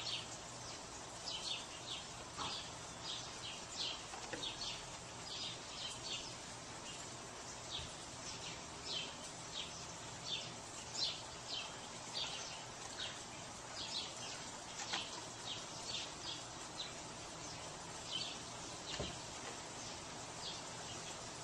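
Gray squirrel chirping at a cat: a long, irregular series of short, high alarm chirps, about two a second, over a faint steady outdoor hiss.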